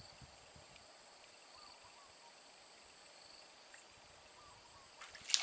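Insects, cicadas or crickets, keeping up a steady high-pitched drone. A sudden sharp sound breaks in right at the end.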